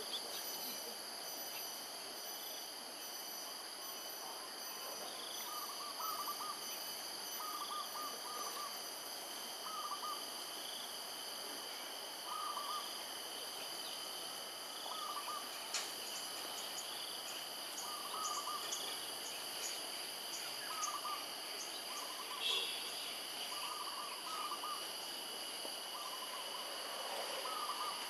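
Steady high insect drone, with a short hooting call of two or three quick notes repeated every second or two.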